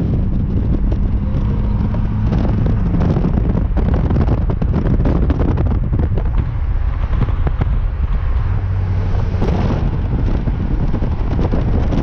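C8 Corvette's V8 exhaust under hard acceleration, with rapid crackling pops and one sharp bang about nine and a half seconds in, over wind buffeting the microphone.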